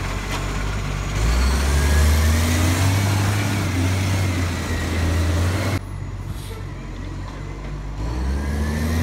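Diesel engine of a side-loading garbage truck pulling away close by, its deep note swelling and rising in pitch as it accelerates. About six seconds in the sound drops off sharply, then the engine revs up again near the end.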